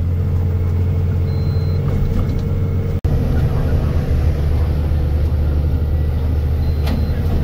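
Truck's diesel engine and road noise droning steadily from inside the cab while driving. The sound drops out abruptly for an instant about three seconds in.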